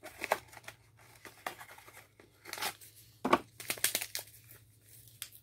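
Small cardboard box of jello mix being torn open and its paper packet handled: several short bursts of tearing and crinkling, the loudest about three to four seconds in.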